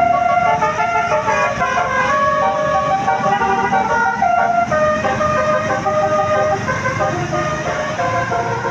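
Telolet basuri bus horn playing a quick tune: short, steady horn notes stepping from pitch to pitch, over a low rumble.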